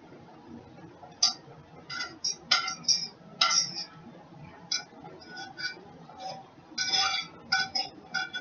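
A utensil clinking and scraping against a pan as pasta and sauce are stirred together: many short, irregular clinks, with a cluster of the loudest ones about seven seconds in.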